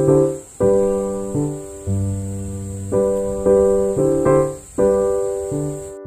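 Background piano music: chords struck roughly every half second, each ringing and fading before the next.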